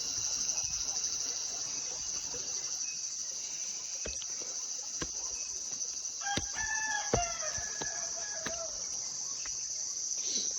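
A steady, high-pitched chorus of crickets, with a rooster crowing for about two seconds past the middle. A few sharp clicks are scattered through it.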